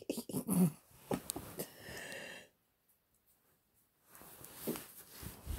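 A man's breathy laughter and snorts coming through a live stream's audio, with the sound cutting out completely for over a second midway.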